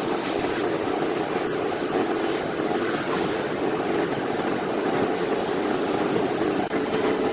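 A power tool's motor running steadily, an even drone without breaks.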